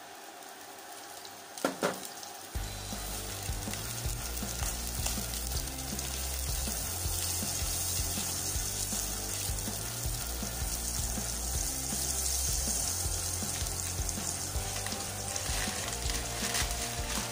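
Butter sizzling and bubbling as it melts in a hot nonstick pot, stirred with a wooden spatula; a couple of sharp knocks about two seconds in, then a steady sizzle.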